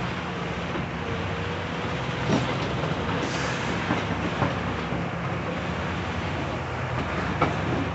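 Cat 349E excavator's diesel engine running steadily between breaker bouts, with a few faint knocks.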